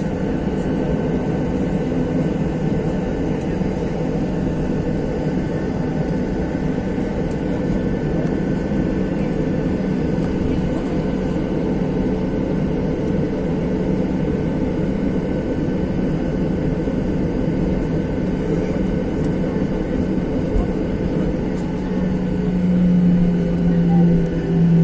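Jet airliner engines running at high thrust, heard inside the passenger cabin during the takeoff run: a loud, steady rumble with several steady whining tones over it. A deeper hum swells louder near the end.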